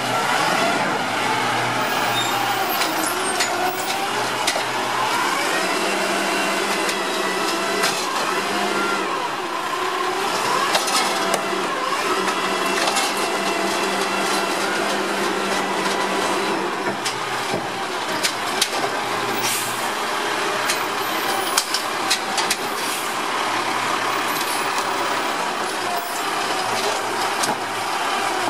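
Automated side-loader garbage truck running its diesel engine while the hydraulic arm grabs, lifts and dumps a plastic wheeled cart, with a hydraulic whine and clanks and knocks of the cart and arm, a cluster of them about twenty seconds in.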